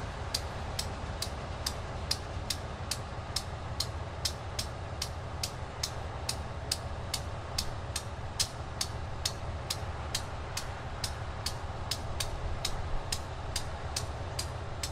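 Small diesel switcher locomotive running at low throttle as it slowly pulls a passenger car along a siding, a steady low rumble. Over it runs a sharp, even tick about twice a second, the loudest thing heard.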